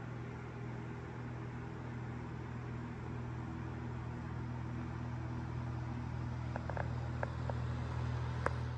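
A steady low hum of a motor or fan running, with a few faint clicks near the end.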